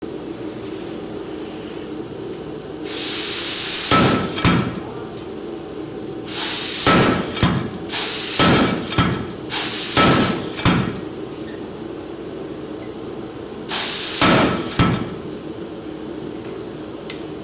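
KA75 pneumatic power hammer with a 75-pound ram, run in five short bursts of rapid strikes, each lasting about one to two seconds. Each burst opens with a hiss of air, and a steady hum continues underneath throughout.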